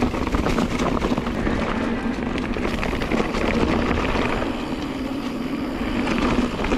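Mountain bike rolling fast down a dirt and rock trail: tyres rumbling and the bike rattling over rough ground, with wind buffeting the camera microphone.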